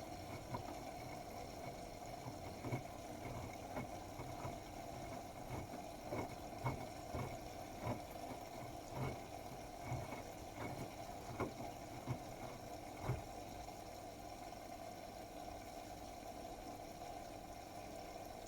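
Bosch Serie 8 WAW32590 front-loading washing machine early in an 80 °C cotton wash: the drum turns with water sloshing over a steady hum, and there are irregular soft knocks and splashes that die away about two-thirds of the way through.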